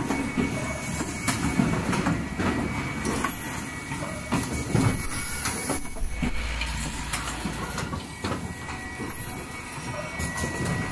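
Automatic cup-mask production line running: a steady machine din with louder mechanical clatters and knocks from its stations every second or two, and a faint steady high tone.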